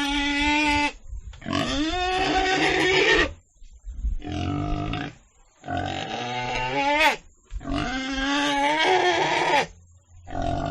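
Pig squealing in a run of about five drawn-out, pitched calls, each one to two seconds long, with short breaks between them.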